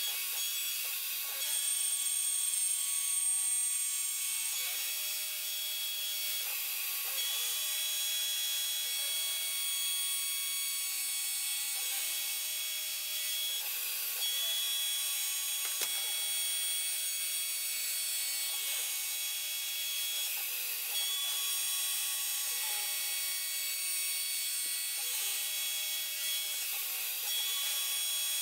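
CNC router milling 6061 aluminum with a small end mill. A steady high hiss of cutting runs under whining tones that shift in pitch every second or two as the axes change direction.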